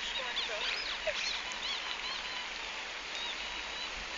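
Squeaky rubber toy pig being squeezed and chewed by a dog: a quick run of short, high gliding squeaks, with a few lower wavering squeaks in the first second.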